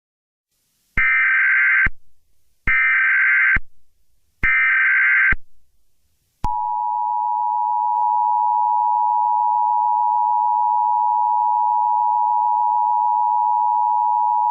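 Emergency Alert System (EAS) alert opening: three short bursts of warbling SAME digital header tones, about a second each with brief gaps, then the steady two-tone attention signal (853 and 960 Hz together), which starts about six seconds in and holds.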